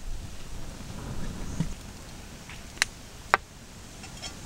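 Two sharp metallic clinks about half a second apart, from tongs against a steel skillet and a stainless steel bowl as fried zucchini slices are moved into the bowl.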